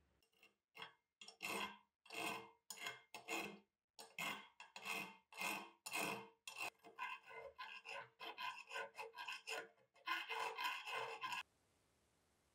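Round file rasping back and forth through the rusted iron loop head of an antique Husqvarna meat grinder's screw, clamped in a vise. The strokes come about two a second at first, then quicker and shorter, then as one continuous stretch of filing that cuts off suddenly near the end.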